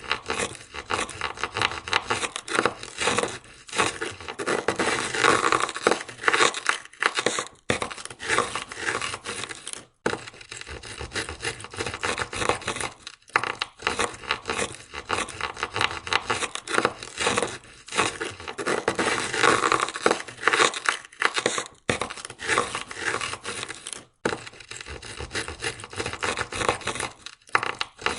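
Ice scraper scraping ice off a car window in rapid, repeated strokes, with a few short breaks.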